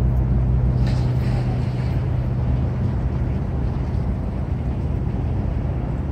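Low, steady boat engine drone over rushing water and wind noise. The drone weakens over the first two to three seconds and the rushing carries on.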